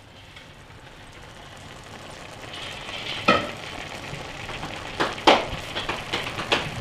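Shrimp, scallop and vegetable stuffing sizzling as it cooks down in a skillet, the sizzle growing louder, with a couple of sharp knocks about three and five seconds in.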